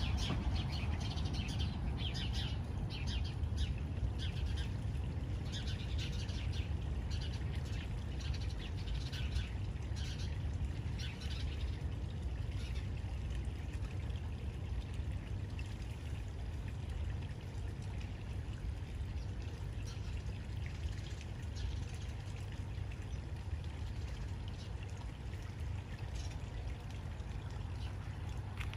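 Garden pond ambience: birds chirping, most often in the first twelve seconds or so, over trickling water and a steady low rumble.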